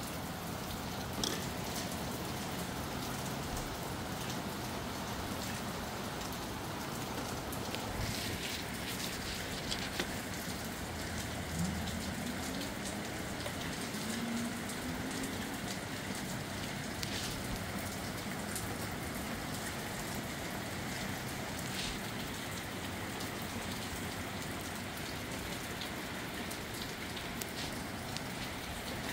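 Steady rain falling, with a few sharper single drops or drips landing now and then.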